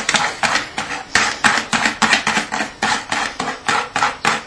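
Egg-and-flour batter being beaten by hand in a bowl, the utensil clicking against the bowl in a steady rhythm of about four strokes a second.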